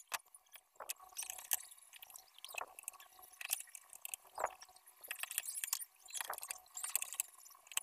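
Screwdriver turning small screws into the metal top cover of a car amplifier's case: an irregular run of light clicks and short scratchy metal scrapes.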